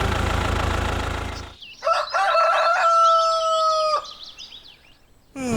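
Background music fades out, then one long animal call, held steady for about two seconds with a slight drop in pitch as it ends.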